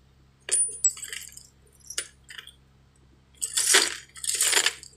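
Small metal fittings and washers clinking as they are handled, three sharp clinks in the first two seconds, the first with a brief ring. A loud rushing noise lasting over a second follows near the end.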